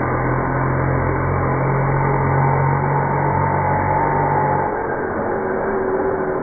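The .25 nitro engine of a Kyosho Inferno NEO ST 3.0 1/8-scale RC stadium truck running at speed as the truck drives away, with a steady buzzing engine note. About five seconds in, the sound drops a little and the pitch falls.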